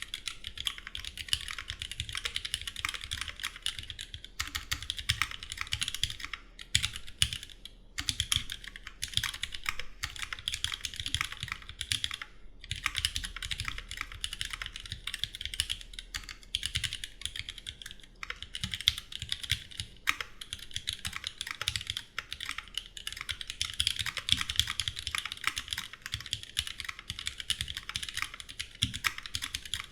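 Continuous fast typing on a custom Duck Jetfire mechanical keyboard with rebuilt vintage Cherry MX Black linear switches, lubed and filmed, under GMK keycaps, with brief pauses about eight seconds in and again near the middle.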